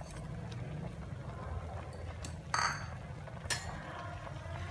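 Pot of greens at a rolling boil, bubbling steadily. A ringing metal clink sounds about two and a half seconds in, and a sharper click a second later, as a utensil goes into the steel pot.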